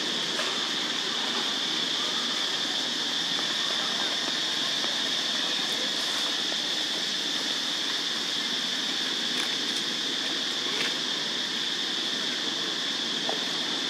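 Steady high-pitched insect drone, like a cicada chorus, over a constant hiss, with a few faint ticks.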